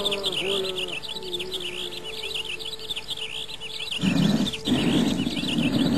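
Birds chirping rapidly and steadily. A faint held tone runs under them in the first few seconds, and a louder low noise comes in at about four seconds in.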